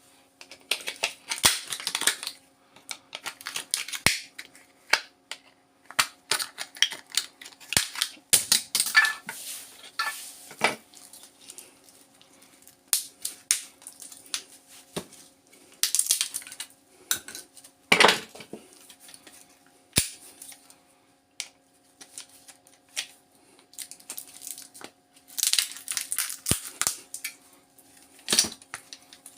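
Plastic casing of a laptop power adapter being prised and cracked open by hand and tool, with irregular clicks, snaps and clattering of plastic and metal parts. A faint steady hum sits underneath.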